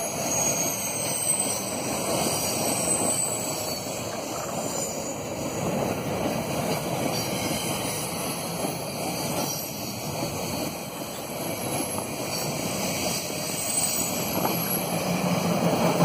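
Freight train of open-top wagons passing close by, steel wheels rolling on the rails with a steady noise.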